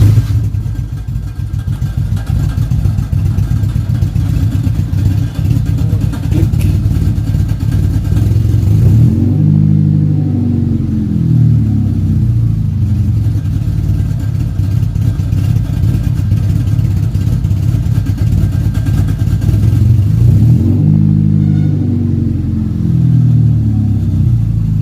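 Vehicle engine starting at once on the key and running, now that the busted main fuse has been replaced; it is revved up and back down twice, about nine seconds in and again near the end.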